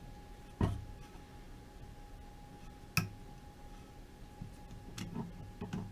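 Sharp metallic clicks of adjustable pliers and metal parts being worked while fitting a part onto a bench grinder: two louder clicks about half a second and three seconds in, then a run of lighter clicks near the end, over a faint steady high hum.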